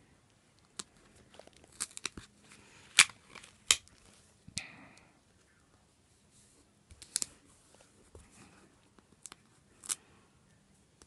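Paper planner stickers being handled, peeled and pressed onto a planner page: scattered sharp crinkles and snaps of sticker paper, the loudest two about three and four seconds in, with quiet stretches between.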